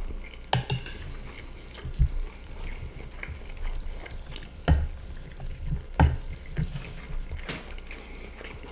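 Close-miked eating sounds: spoons scraping and clinking against plates of chicken stroganoff with rice and shoestring potato sticks, with wet mouth sounds between. About five sharp clinks stand out, the loudest around the middle.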